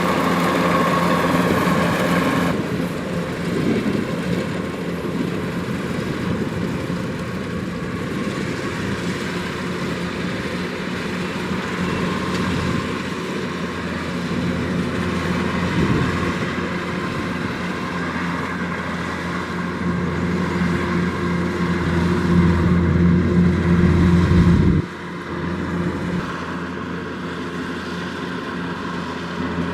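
Kubota DC-105X rice combine harvester's diesel engine and threshing machinery running steadily. A louder, deeper drone builds in the later part and cuts off suddenly about five seconds before the end, after which the machine runs on more quietly.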